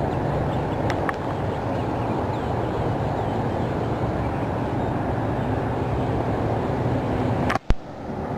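Steady outdoor background noise with a low hum, broken by a sharp click and a brief dropout near the end.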